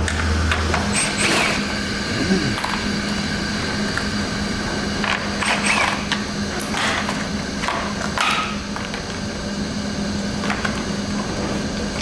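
A power tool winds down and stops about a second in. Then come scattered clicks, knocks and light clatter of hand tools and parts being handled, over a steady low hum.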